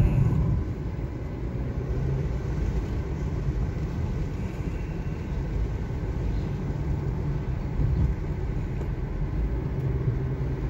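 Steady low road noise heard inside a moving car's cabin: engine and tyres running as the car drives along.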